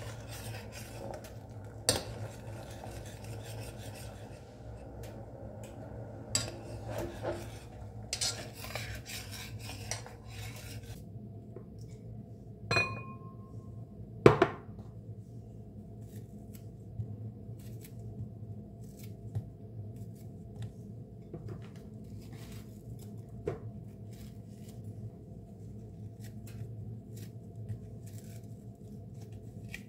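A spoon stirring and scraping a thick rice mixture in an aluminium pot, with clinks against the side. After that, a glass bowl rings briefly as it is set down, a sharp knock follows, and then faint crackles come as pieces of toasted bread are torn into the bowl.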